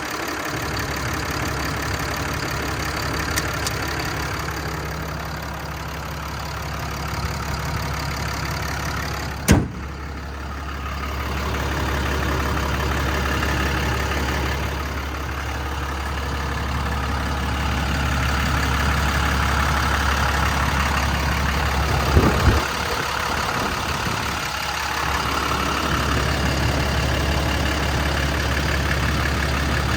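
6.7-litre Cummins diesel engine running steadily with a low hum. There is one sharp click about ten seconds in and a couple of knocks a little past twenty seconds.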